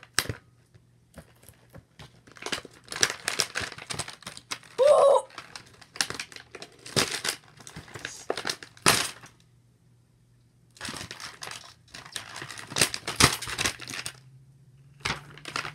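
Clear plastic packaging crinkling and rustling as a toy is unwrapped, in irregular handfuls with a short pause about two-thirds of the way through.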